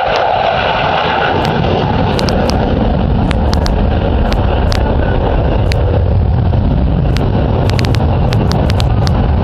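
Loud jet noise from an F-16 Fighting Falcon's single engine as the fighter flies its display. The noise deepens into a low rumble over the first couple of seconds, with scattered sharp crackles.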